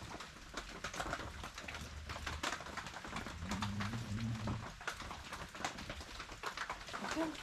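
Sleeping bag and bedding rustling and scratching in short irregular bursts, with one low groan lasting about a second near the middle.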